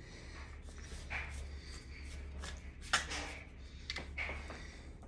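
Faint plastic clicks and rubbing as the pump plunger and lid of a Pampered Chef whipped cream maker are fitted back onto its container, with a sharper click about three seconds in, over a steady low hum.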